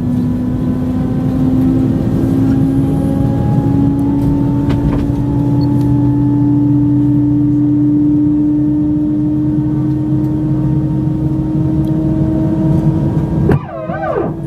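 Airbus A320-family jet engines heard from inside the cabin: a loud steady rush with a humming tone that slowly rises in pitch. About a second before the end it cuts off abruptly.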